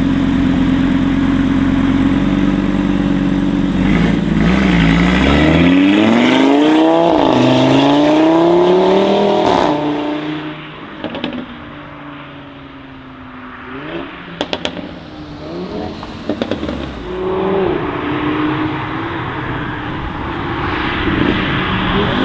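Audi RS3 Sportback 8V's turbocharged five-cylinder with a full Armytrix exhaust, idling steadily, then accelerating hard with the pitch rising through two gear changes. The sound drops away suddenly about ten seconds in, leaving a few sharp exhaust pops, and an engine note rises again near the end.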